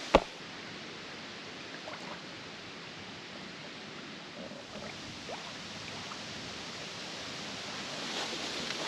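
Small waves lapping gently at a pebble shore, a soft steady wash of water, with one short sharp knock right at the start.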